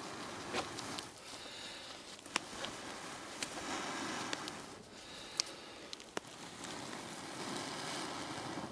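Repeated long breaths blown into a cupped bundle of dry grass tinder, coaxing a char-cloth ember to catch and flame, with a few sharp clicks among the breaths.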